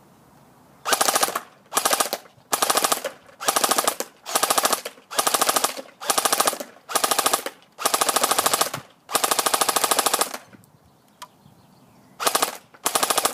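SRC G36C airsoft electric gun firing short full-auto bursts, each a rapid run of evenly spaced shots, about fourteen in quick succession from about a second in, with a longer pause near the end before two more.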